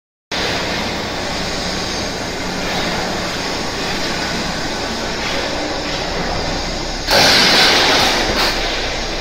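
Corrugated-sheet roll forming machine running steadily with a low hum as a formed metal sheet feeds out through its rollers. A loud hiss cuts in about seven seconds in and fades away over about a second.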